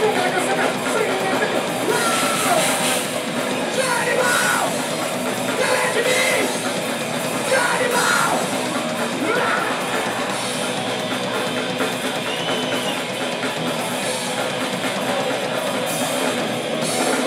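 Hardcore punk band playing live, with fast drums, distorted electric guitars and bass. Shouted vocals come through in the first half.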